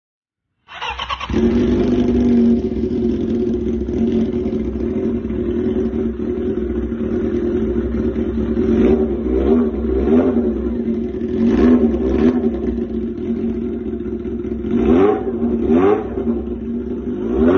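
Honda CB400 motorcycle engine running on its freshly cleaned and tuned carburetors, coming in suddenly about a second in and idling steadily, with several quick throttle blips in the second half.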